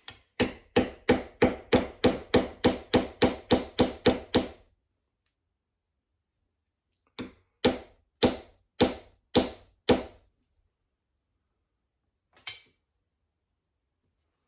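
A small hammer tapping a brass wedge into the end of a cherry handle to lock on a brass hammer head, with a metallic ring on each strike. There is a steady run of about fourteen taps at roughly three a second, a pause, then six more taps and one light tap near the end.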